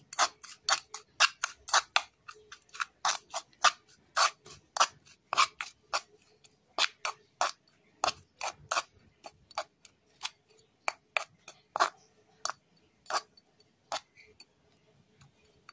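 Metal spoon clinking against a ceramic bowl while stirring a thick mix of crushed peanuts, sugar and liquid soap. It is a quick, irregular run of sharp clicks that thins out in the second half.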